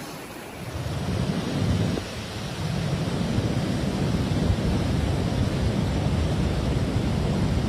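Outdoor storm noise over flooded ground: a steady rushing roar with a heavy low rumble and hiss. It swells about half a second in and dips briefly near two seconds.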